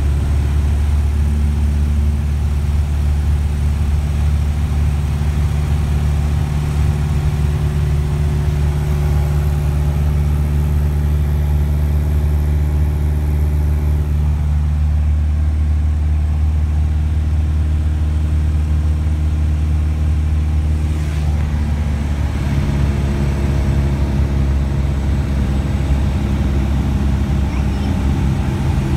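Light aircraft's engine droning steadily, heard from inside the cabin. Its pitch shifts slightly about 14 seconds and again about 22 seconds in.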